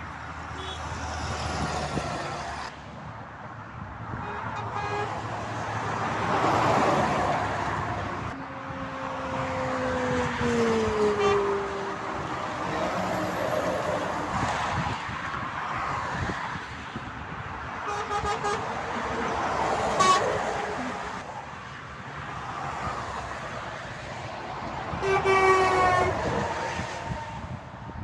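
Vehicles passing at motorway speed, with horns sounded as they go by: one horn, about nine seconds in, slides down in pitch as the vehicle passes, and shorter horn blasts follow later, the loudest near the end.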